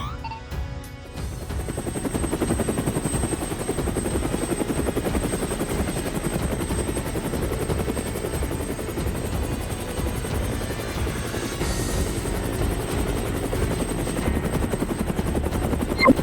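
Helicopter sound effect: the rotor beats rapidly and steadily, with a thin high whine, starting about a second in.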